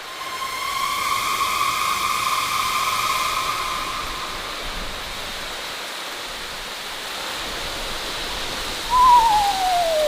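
Spooky sound effects: a long held, eerie howl lasts about four seconds. Near the end a second howl wavers, then slides steadily down in pitch. Both sound over a steady hiss of wind-like noise.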